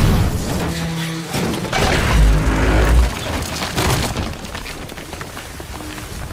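Movie action sound effects of a blast and a collapse: a sudden loud bang at the start, then heavy crashes and a deep rumble of concrete rubble and a car falling, easing off in the last couple of seconds.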